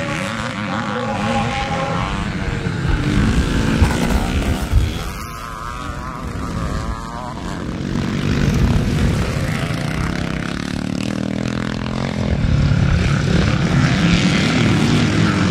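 Several classic motocross bikes racing, their engines revving up and easing off as they pass, dropping away for a couple of seconds in the middle before building again.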